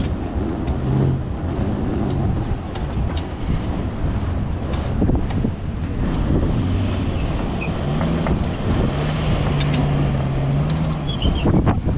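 Wind buffeting a trailer-mounted microphone over a Toyota Hilux's engine as it tows a camper trailer through soft beach sand. The engine note stands out briefly about a second in, then again for a few seconds from about eight seconds in.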